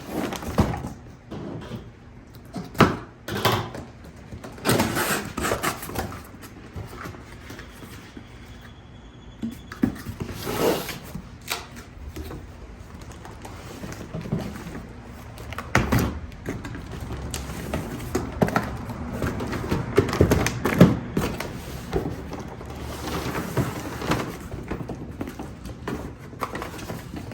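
A cardboard fireworks case being opened and handled by hand: irregular scraping and rustling of cardboard and packaging, with scattered knocks.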